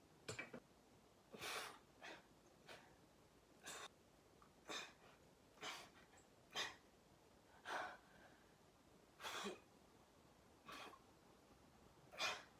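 A man's short, forceful breaths, about one a second, as he strains through repetitions of a weight-plate exercise.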